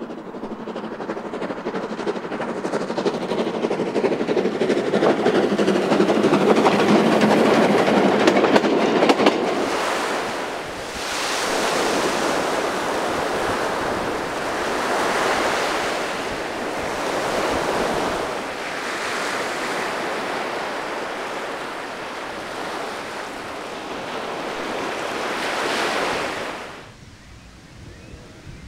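A narrow-gauge steam train approaching and passing, getting louder over the first several seconds, with sharp clicks as it goes by. From about ten seconds in, sea surf: waves breaking and washing up a sand beach in surges every three to four seconds, cutting off suddenly near the end.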